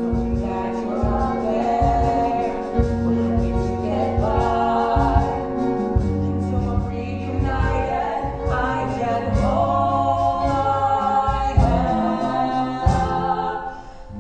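A group of voices singing a stage-musical number over instrumental accompaniment with a steady beat. The sound dips briefly just before the end.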